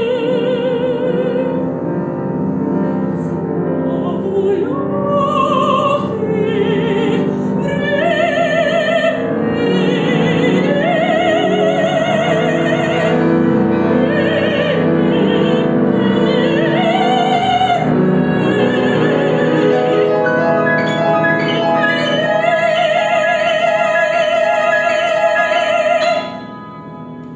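Operatic solo singing with a wide vibrato over piano accompaniment, the line climbing to a long held high note near the end that cuts off sharply.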